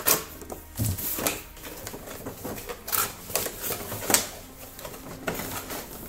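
A cardboard toy box and its clear plastic window insert being handled and pulled out: irregular crinkling rustles and sharp clicks, the loudest a few snaps near the start, about three seconds in and about four seconds in.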